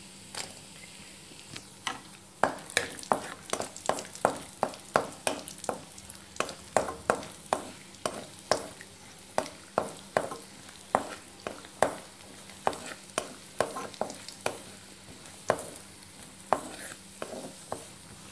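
Wooden spatula stirring cashews and raisins frying in ghee in a kadai: a run of scraping knocks against the pan, about two a second, starting about two seconds in, over a faint sizzle.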